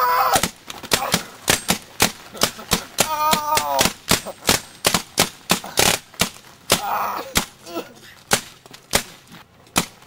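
Paintball guns firing an irregular string of sharp pops, about two or three a second, with a short shout about three seconds in and another brief voice about seven seconds in.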